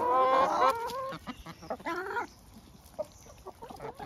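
Domestic hens clucking and calling in excitement over fresh herbs: a drawn-out call in the first second and another call rising in pitch about two seconds in, then quieter, with small scattered clicks.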